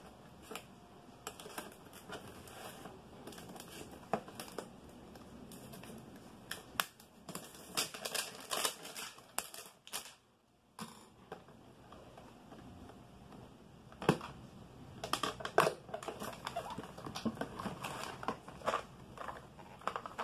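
Cardboard box and plastic packaging of a computer fan kit being opened and handled: irregular rustling and crinkling with scattered light clicks and knocks, broken by a brief silent gap about halfway through.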